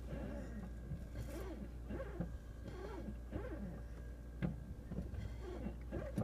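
Tesla Model S brake pedal squeaking again and again as it is pressed and let up: a run of short squeaks that rise and fall in pitch, with a couple of faint clicks, over a low steady hum.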